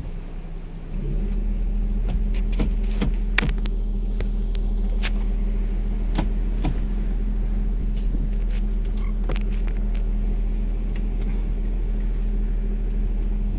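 A small fishing boat's motor running with a steady low hum that gets louder about a second in and then holds even. Scattered sharp knocks and clacks of gear on deck come on top.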